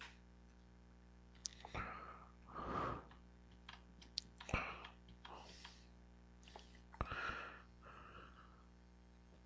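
A person's breaths and sighs close to the microphone: several soft exhalations of about half a second each, with a few sharp clicks, over a faint steady electrical hum.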